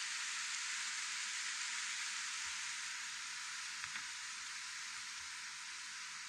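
A steady, even outdoor hiss that eases slightly toward the end, with two faint clicks about four seconds in.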